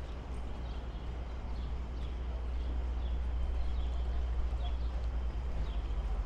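Footsteps at an even walking pace, about two a second, over a steady low rumble of city street ambience.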